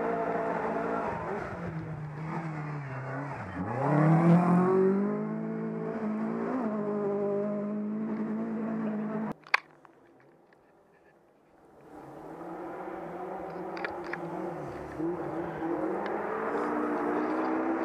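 Rally car engine at high revs: the note dips, then revs up sharply about four seconds in, the loudest moment, and holds a steady high pitch. About nine and a half seconds in, a sharp click is followed by a sudden drop to near silence for about two seconds, then an engine note builds again.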